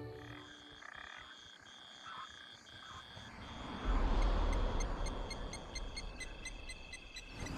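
Night chorus of frogs and insects: a steady high trill broken into long notes, with rapid, evenly repeated pulsed calls above it. A low rumble comes in about four seconds in.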